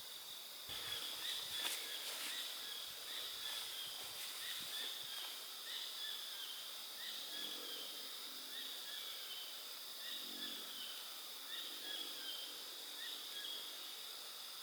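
Cicadas droning steadily at a high pitch, with birds chirping in short repeated calls over them.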